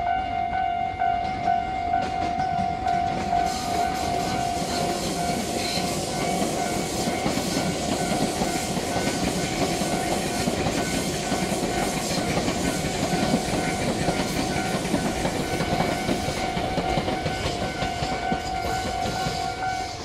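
Level-crossing alarm bell ringing in a steady repeating ding, while a Tobu 200 series limited express electric train rolls slowly past over the station approach tracks. Wheel and rail noise builds about two seconds in and carries on under the bell.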